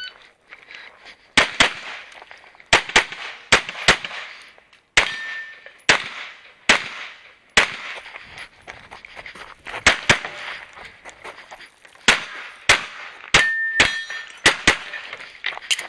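Pistol shots fired in quick pairs at competition pace, with a pause of about two seconds while moving to the next targets. A steel target rings briefly twice, about five seconds in and again near the end.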